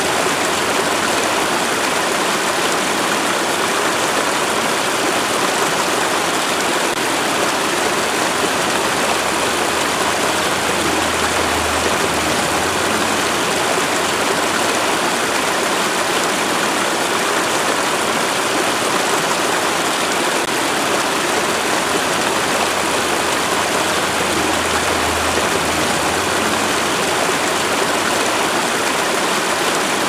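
Steady rushing of a waterfall, an even wash of falling-water noise. A low hum swells briefly twice underneath it.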